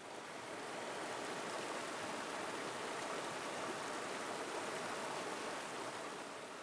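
Steady rush of a shallow, rocky mountain river, fading in over the first second.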